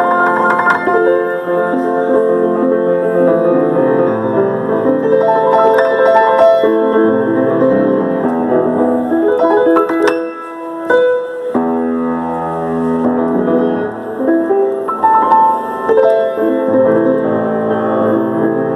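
Solo piano playing chords and a melody with sustained notes, with a short lull about halfway through.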